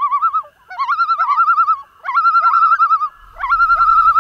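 Common loon tremolo calls, four in a row, each a quick rising note that breaks into a fast, even quaver.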